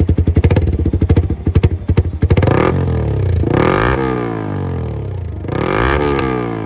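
Yamaha R15's single-cylinder engine running through an aftermarket Akrapovic double-barrel silencer. It has a choppy, fast pulsing at first, then is revved twice, the pitch rising and falling each time.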